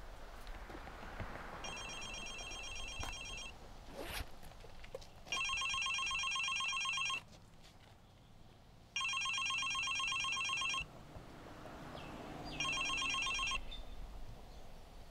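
Mobile phone ringing with an incoming call: a rapid warbling electronic ringtone in bursts of about two seconds, four times, the middle two loudest. A single sharp knock about four seconds in.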